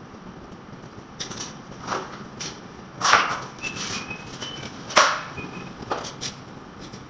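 Sharp knocks at uneven intervals, about seven in all, the two loudest about three and five seconds in, typical of hand work on a wall under repair.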